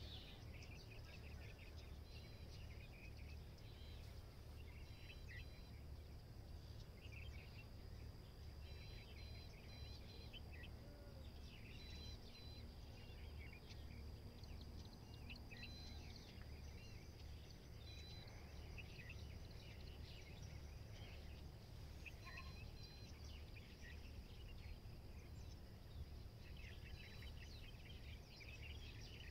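Faint open-field ambience: small birds chirping and calling now and then over a steady high insect drone and a low steady rumble.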